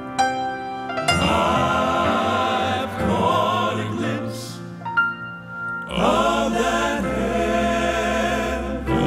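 Male gospel quartet singing in close four-part harmony with grand piano accompaniment, the voices swelling on held chords, easing off about five seconds in, then coming back in together.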